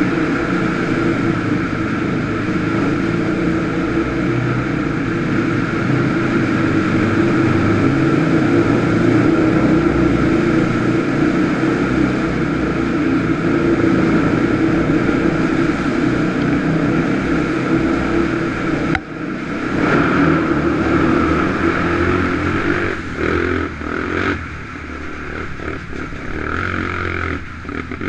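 ATV engine running steadily under way. About two-thirds through the note dips sharply and then varies with the throttle, easing off and getting quieter near the end.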